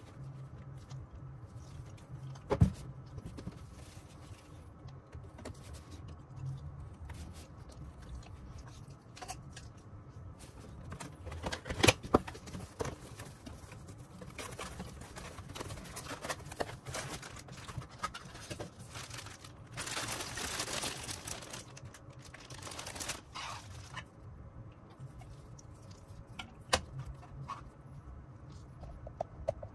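Cardboard figure box being handled and opened: scattered taps and knocks, the sharpest about two and a half and twelve seconds in, with spells of rustling and sliding cardboard, the longest a little past twenty seconds in.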